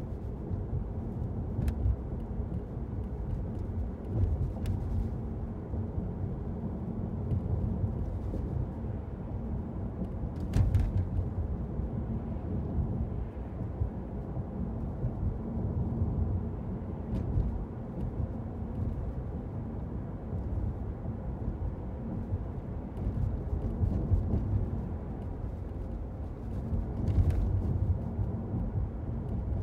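Car interior noise while driving: a steady low rumble of engine and tyres on the road, heard from inside the footwell. A few short knocks cut through, the strongest about a third of the way in and near the end.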